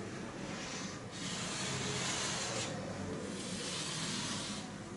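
Chalk rubbing across a chalkboard as lines are drawn: a dry scraping hiss in long strokes.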